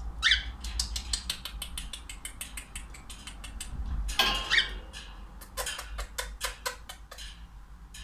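Cockatiel pecking and husking millet seeds from a hand-held millet spray: runs of rapid dry clicks of beak on seed. Twice, near the start and about halfway through, it gives a short chirping call.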